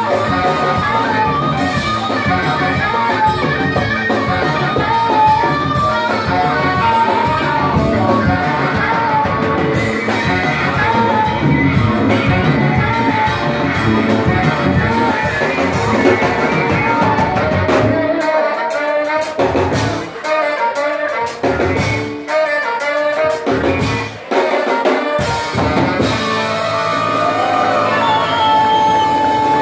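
A live band plays: saxophones, electric bass, congas and drum kit. About two-thirds of the way in, the band plays a stop-start passage, dropping out in several short breaks, then settles into held chords.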